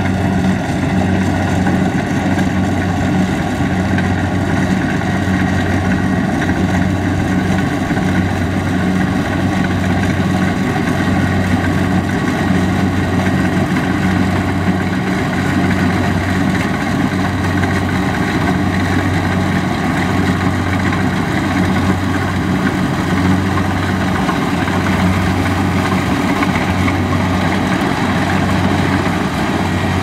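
Kubota DC70 Plus rice combine harvester's diesel engine running steadily with a low, even drone while the machine cuts and threshes standing rice.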